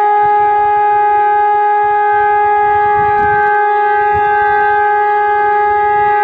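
DS977 siren sounding a loud, steady tone at full pitch during a siren test.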